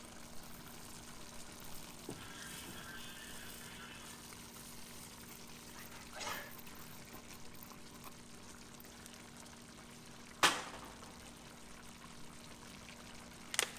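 Uncooked rice poured from a small bowl into a pot of simmering chicken broth: a soft pattering hiss for a couple of seconds. About ten seconds in comes one sharp tap, with another near the end, over a low steady hum.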